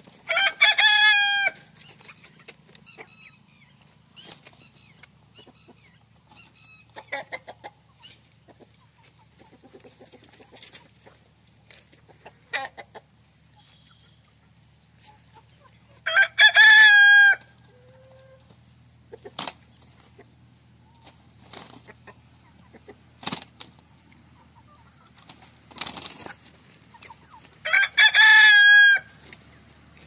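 Desi roosters crowing three times, each crow about a second and a half long: one just after the start, one about 16 seconds in and one near the end. Between the crows, hens and roosters give soft scattered clucks.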